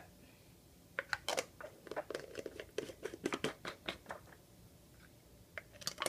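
Glass jars handled on a stone countertop while white plastic lids are fitted onto them: a run of light clicks and scrapes, most in the first few seconds, with a couple more near the end.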